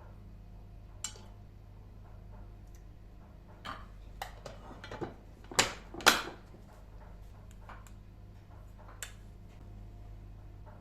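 Dishes and utensils being handled: a click about a second in, a cluster of clinks and knocks in the middle with two louder knocks close together, and one more click near the end, over a steady low hum.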